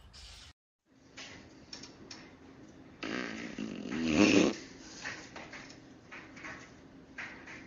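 A long, rippling fart about three seconds in, lasting about a second and a half and loudest near its end.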